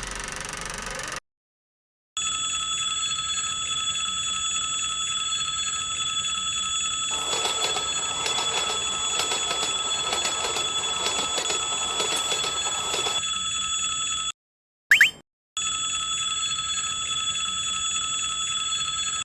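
Railroad crossing warning bell ringing steadily, with the rumble of a passing train over it for several seconds in the middle. The bell cuts off, a short rising boing sound effect follows, and then the bell rings again.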